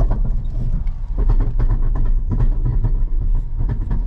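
Vehicle driving over a rough dirt road with a steady low rumble and a constant run of rattles and clanks, typical of an empty trailer bouncing along behind it.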